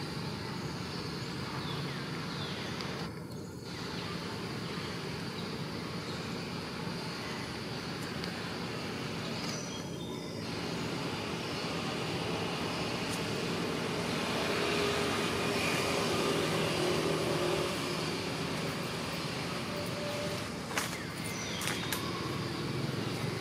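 Steady outdoor background noise, like road traffic, swelling a little past the middle, with a few light clicks near the end.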